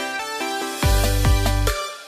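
Electronic background music with a melody; a deep bass comes in a little under a second in and drops out just before the end.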